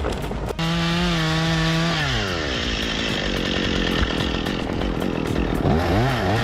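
Chainsaw running at full throttle, its pitch dropping as the chain bites into the wood and it cuts steadily, then revved up and down near the end.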